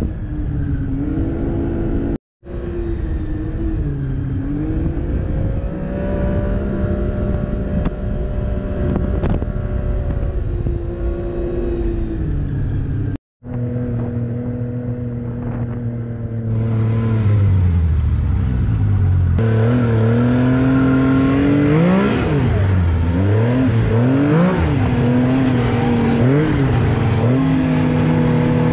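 Snowmobile engine running under way, its pitch rising and falling with the throttle. Two brief drops to silence split it into separate stretches. From about halfway through it is louder, with quick swings in pitch.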